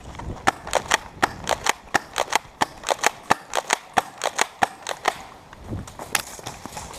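Airsoft electric gun (AEG) firing quick single shots, sharp snapping cracks about four a second for some five seconds, then one or two more.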